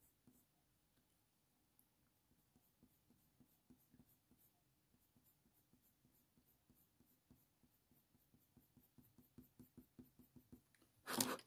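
Faber-Castell Polychromos colour pencil scratching faintly on hot-press watercolour paper in quick, short, repeated strokes, growing louder toward the end. A brief loud burst of noise comes just before the end.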